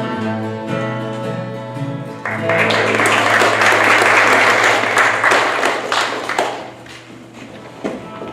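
A choir's gospel song ends on held notes. About two seconds in, a church congregation breaks into applause that lasts about four seconds and then dies away, over a low sustained instrument note.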